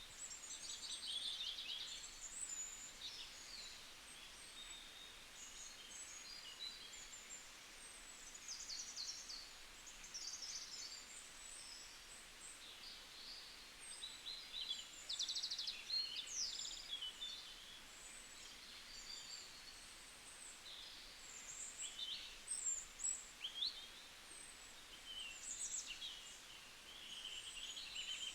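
Several small birds singing and chirping together: a dense, overlapping chorus of short high chirps, quick trills and rapid whistled glides, over a faint steady hiss.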